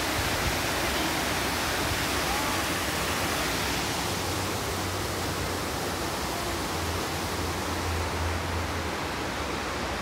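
Steady rush of an artificial waterfall pouring down a rock wall into a pool, easing slightly toward the end. A low hum joins in from about four seconds in.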